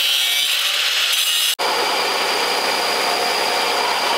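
Angle grinder grinding a steel tab clamped in a bench vise. About one and a half seconds in, the sound cuts to a belt grinder running steadily as the tab is ground against the belt, rounding its corners.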